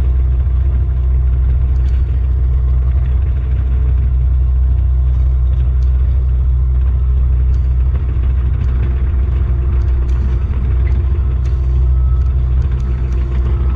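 John Deere 50G compact excavator's diesel engine running steadily, heard from inside the cab while the bucket works the dirt of a trail. There is a deep, even drone with a steady hum above it and a few faint clicks.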